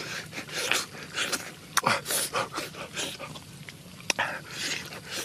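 Close-up mouth sounds of a person eating roast chicken with his fingers: wet lip-smacking, sucking on his fingers and chewing, with sharp clicks about two and four seconds in.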